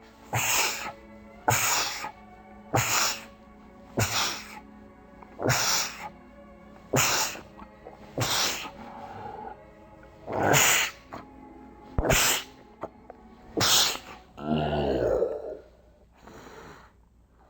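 A man sneezing over and over: about a dozen short, sharp sneezes, roughly one every second and a half, the last one longer with a falling voiced tail. Faint music plays underneath.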